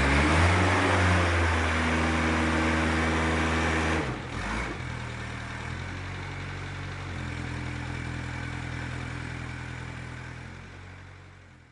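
A heavy engine running steadily with a rushing noise over it, loud at first, then dropping suddenly to a lower, quieter hum about four seconds in, shifting pitch again later and fading out at the end.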